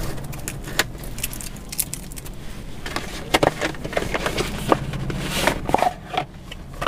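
Plastic seal and cardboard packaging of a GoPro Hero 9 Black retail box being torn open and pulled apart: a string of sharp crinkles, rustles and clicks. A steady low hum runs underneath.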